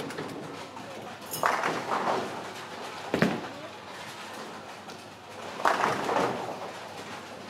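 Bowling alley sounds: a clattering crash of pins about a second and a half in, a sharp thud of a ball about three seconds in, and another pin crash near six seconds, over the hum of a large hall.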